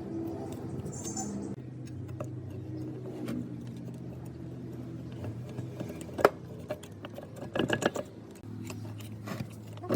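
Metal parts clinking and knocking: a sharp click about six seconds in and a short cluster of knocks near eight seconds, over a steady low hum.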